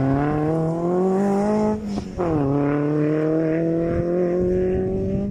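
Rally car engine under full acceleration, revs climbing, with one upshift about two seconds in that drops the pitch, then revs climbing again more slowly in the next gear.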